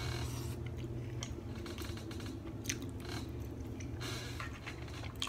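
Close-miked chewing of a mouthful of macaroni, with short wet smacks and mouth clicks scattered through, over a steady low hum.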